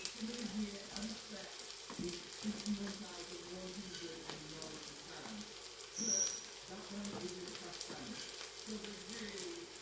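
Potatoes and an egg omelette sizzling in two frying pans on an induction hob: a steady hiss of frying with fine crackles scattered through it.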